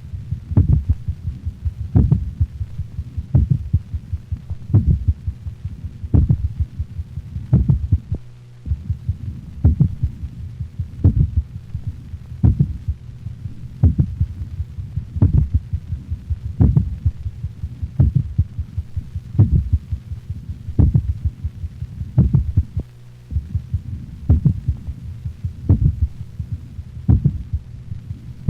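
A dog's heart in complete (third-degree) heart block, auscultated over the mitral valve area. Loud, slow ventricular beats come about every 1.4 s, and fainter, lower atrial sounds fall between them on their own faster rhythm: two independent rhythms.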